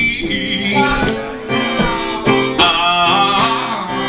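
Live acoustic blues: a harmonica plays a fill with bent notes between sung lines, over a strummed acoustic guitar.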